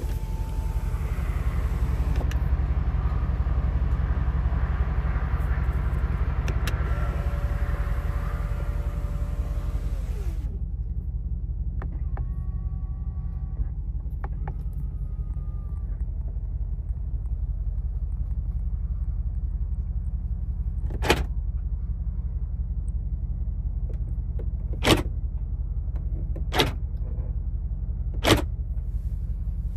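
Steady low rumble from a car, while a small electric motor whines steadily and winds down with a falling tone about ten seconds in. Shorter motor whirs follow, then four sharp clicks spaced a second or two apart near the end.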